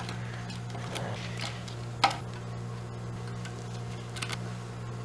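A few light metallic clicks and ticks as an Allen key works the bolts on a mini bike's brake caliper, the sharpest about two seconds in, over a steady low hum.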